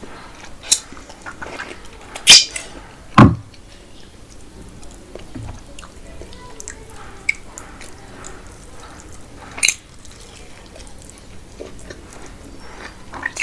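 Close-up wet chewing and mouth sounds of someone eating spiced mutton curry with rice, broken by a few sharp, loud clicks, the two loudest about two and three seconds in.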